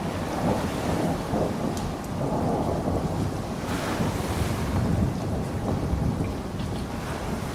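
Thunder rumbling on and on under steady rain, swelling and easing, with a brief louder rush of rain about four seconds in.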